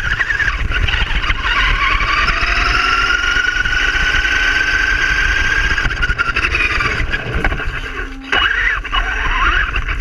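Electric motor and drivetrain of a Traxxas Rustler RC truck whining, the pitch gliding up and down with the throttle and sweeping sharply up a little after eight seconds in, over a low rumble of tyres and wind.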